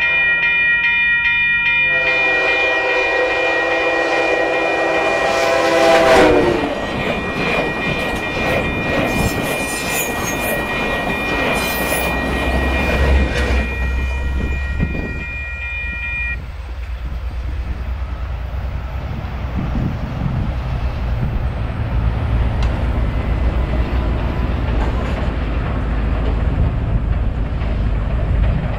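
Amtrak Cascades passenger train's air horn blowing at a grade crossing over ringing crossing bells. The horn's pitch drops about six seconds in as the locomotive passes close by, then the cars roll past with wheel clatter. The bells stop about halfway through, leaving a steady low diesel engine rumble.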